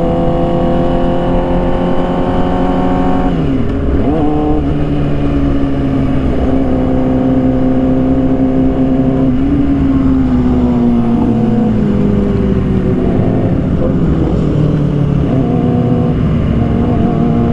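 Motorcycle engine running under way. Its pitch drops sharply about three seconds in, then holds steady, sags slowly as it slows, and picks up again near the end.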